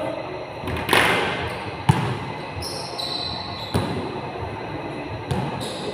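Basketball thudding on an indoor court in a large echoing gym: a loud sharp bang about a second in, then single bounces spread through the rest, with short high sneaker squeaks around three seconds in.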